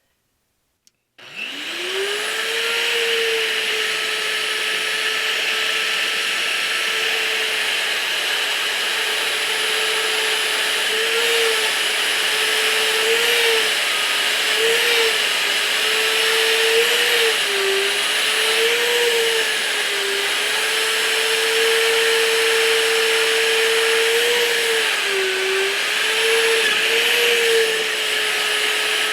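Cordless magnetic drill spinning up about a second in and then running with a steady whine as a letter Q bit drills through steel plate under coolant; the motor's pitch dips briefly several times as the bit loads up in the cut.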